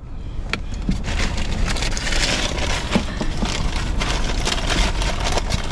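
A paper fast-food bag crinkling and rustling with many small crackles as it is grabbed, opened and held to the mouth by someone hyperventilating.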